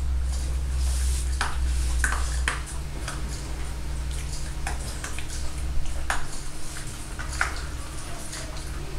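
Stainless steel dog bowl clinking and ringing as a Cavalier King Charles Spaniel puppy eats kibble from it: scattered sharp metallic pings every second or so, over a steady low hum.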